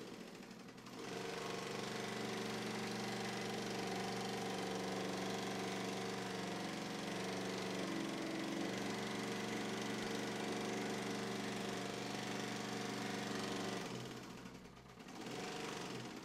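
Industrial sewing machine running at a steady speed, stopping about fourteen seconds in, then running again briefly before it stops near the end.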